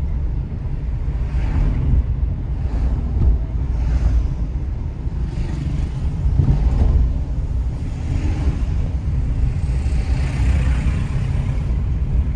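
Steady low rumble of a moving car and the street traffic around it, heard through an open car window.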